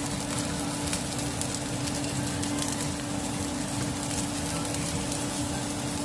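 Baby trumpet mushrooms sizzling and crackling in hot oil in a pan over high heat, searing. A steady low hum runs underneath.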